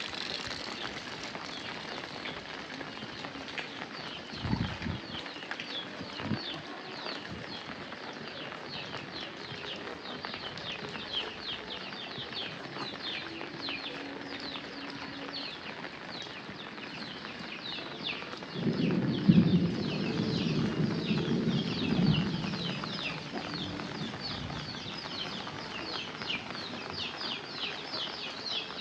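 Steady rain falling, with birds chirping in quick, repeated descending notes that grow thicker after the first few seconds. A louder low sound lasts a few seconds past the middle.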